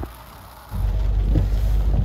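Low, steady rumble of a vehicle driving through flooded streets, heard from inside the cab. It starts abruptly about three quarters of a second in, after a quieter stretch that opens with a short click.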